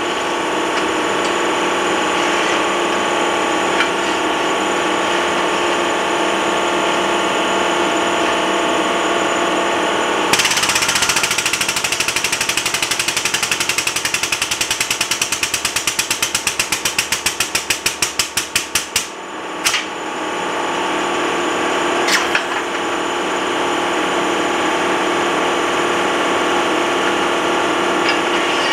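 Air-over-hydraulic pump of a shop press hammering in rapid strokes for about nine seconds, starting about a third of the way in. Its strokes slow as pressure builds on a hot steel plate under the ram, and it stops with two short clicks after it. A steady machine hum runs underneath throughout.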